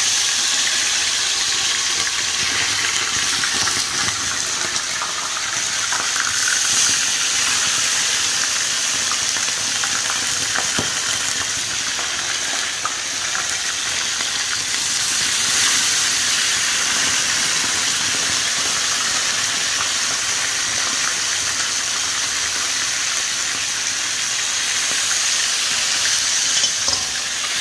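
Whole fish frying in hot oil in a pan: a steady, loud sizzle as the wet fish are laid in one after another.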